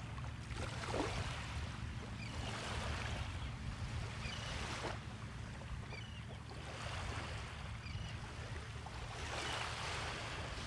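Small Gulf of Mexico waves washing onto the beach, a hissing wash every two to three seconds, over a steady low rumble.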